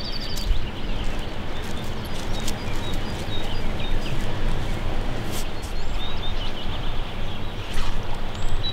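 Steady rushing outdoor background noise by a river, with a few short bird chirps.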